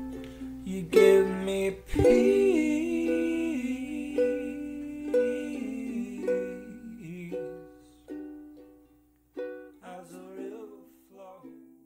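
Closing music of plucked strings, the notes coming further apart and dying away near the end.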